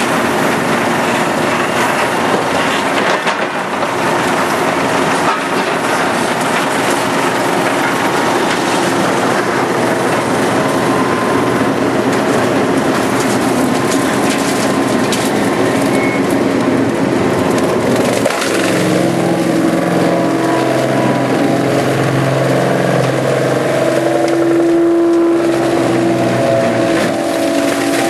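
Large drum wood grinder chewing logs and branches into chips, a loud steady crushing and splintering. About two thirds of the way in, a steady low machine drone joins it.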